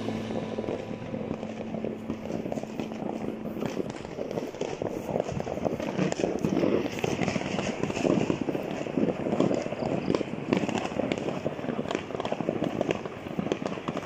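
Many distant fireworks and firecrackers going off at once: a dense, continuous crackle of small pops and bangs that grows busier from about five seconds in.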